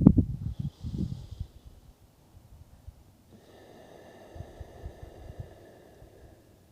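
A man breathing slowly and deeply during a guided breathing exercise: a breath in the first second or so, then a long, quieter breath of about three seconds, with faint steady high tones alongside it.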